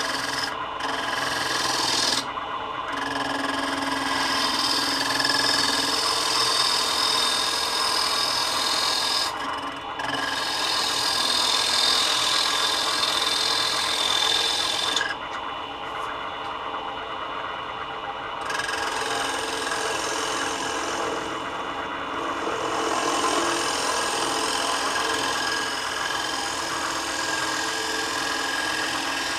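Gouge cutting the face of a spinning wooden disc on a Laguna Revo 12/16 wood lathe: a steady scraping hiss of shavings peeling off, with the lathe's running hum underneath. The cut lifts off briefly about 2 and 9.5 seconds in, and for a few seconds from about 15 s.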